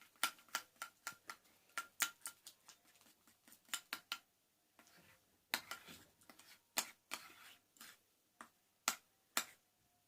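A utensil clicking and clinking against a mixing bowl while stirring water into clear liquid glue for slime. The sharp, irregular clicks come a few a second, with a short lull a little after the middle.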